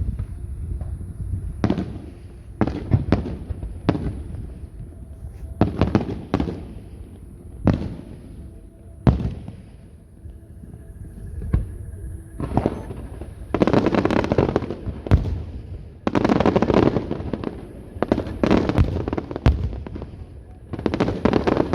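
Aerial fireworks display: single sharp bangs a second or two apart, then from about halfway through denser volleys of bangs with long crackling bursts.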